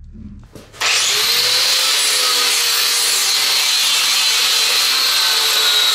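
Angle grinder sanding the aluminum boat transom, starting up about a second in and then running steadily with a high whine over a dense grinding hiss.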